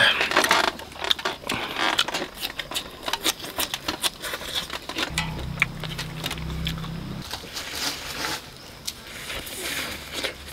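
Close-up eating sounds: biting and chewing grilled skewered meat, a dense run of irregular wet clicks and crunches, loudest at the very start, with a low steady hum for about two seconds a little past halfway.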